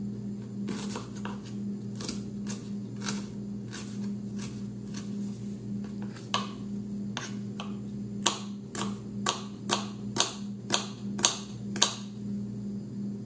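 Kitchen knife chopping red onion on a plastic cutting board: sharp taps of the blade on the board about twice a second, louder from about eight seconds in. A steady low hum runs underneath.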